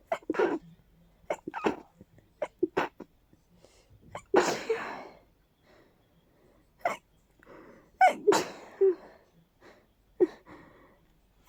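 A person's allergy sneezing fit: a string of short, stuffy, stifled sneezes and sniffs, with the strongest bursts about four seconds in and again around eight seconds in.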